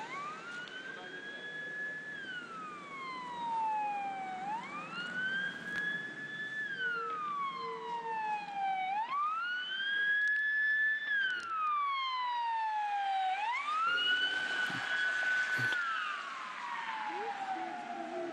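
Emergency vehicle siren in a slow wail. Each cycle rises quickly, then falls slowly over about four and a half seconds, and the cycle repeats four times.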